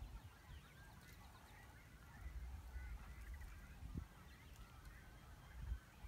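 Faint bird calls, many short chirping and whistling notes, over low, uneven wind rumble on the microphone that gusts a little about four seconds in and again near the end.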